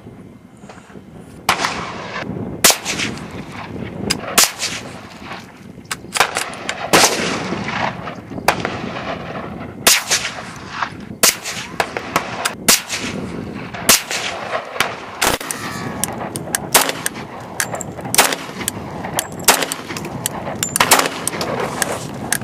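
A long string of sharp .22 long rifle shots, CCI Stinger rounds fired from a Ruger American rifle at a can, coming about one to two a second.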